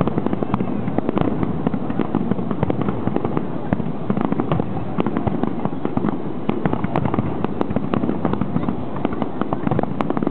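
Aerial fireworks barrage, with shells bursting and crackling in dense, rapid succession over a continuous rumble, as in a climax volley of a large display.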